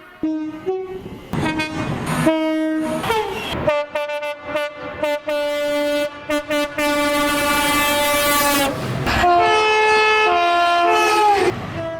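British train horns sounded in quick succession, each clip cut off abruptly. First come several short blasts, then a long blast held for about five seconds, then a two-tone horn alternating high and low notes.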